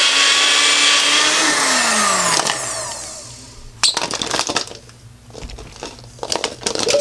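Magic Bullet Express Deluxe blender motor running with the cross chopping blade, trying to chop ice, which it fails to do. The motor whine falls and dies away about a second and a half in. It is followed by a few knocks and clatters of the plastic cup and parts being handled.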